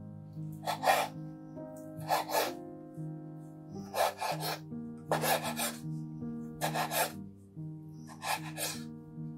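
Kitchen knife slicing raw chicken breast on a bamboo cutting board: six separate cuts, each a short scraping stroke of the blade through the meat onto the board, about one every second and a half, over soft background music.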